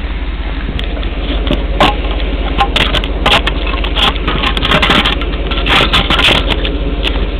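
Hand rubbing and fumbling over the camera microphone, making loud clicks and scrapes, over a 1994 GMC Sierra pickup idling steadily through a Cherry Bomb Pro muffler with the tailpipe turned out before the rear wheel.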